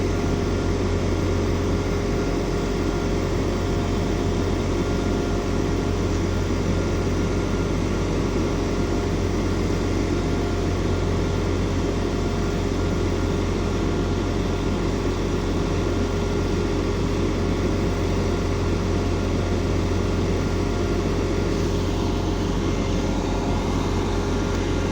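Diesel multiple unit, an Arriva Class 175, running steadily at idle: a constant engine drone with a low hum that does not change.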